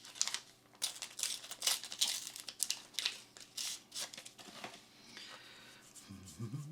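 Foil wrapper of a Flesh and Blood booster pack being torn open and crinkled by hand: a quick run of sharp rips and crackly rustles that dies down after about five seconds.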